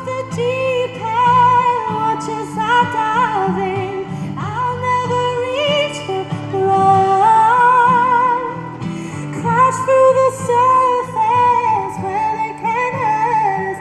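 Pop ballad music: a woman sings a high melody with vibrato, without clear words, over instrumental backing.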